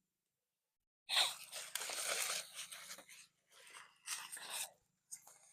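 Dry coconut palm straw crunching in irregular bursts, twice, as it is handled on the bonfire to get wet wood to catch.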